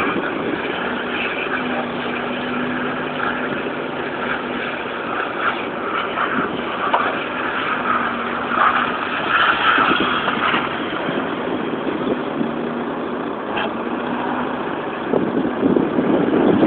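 Chrysler Voyager's 3.3-litre V6 engine running hard as the van slides round in circles on snow, its steady note holding for a few seconds at a time and dropping away between.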